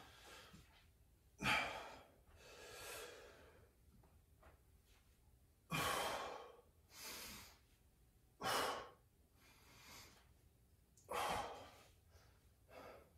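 A man breathing hard from exertion during an ab exercise: about four loud, noisy exhales, with softer breaths between them, every second or two.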